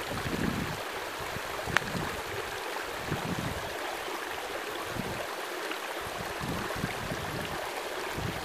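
Steady rushing hiss of open-air ambience, with soft low wind buffets on the microphone now and then and one sharp click about two seconds in.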